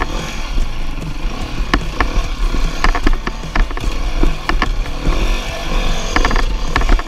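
Dirt bike engine revving up and down, with many sharp knocks and clatter through it.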